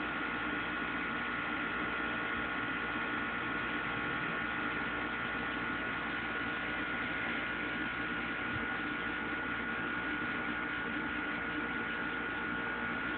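Steady hum with a thin, high whine over a hiss of noise, unchanging throughout.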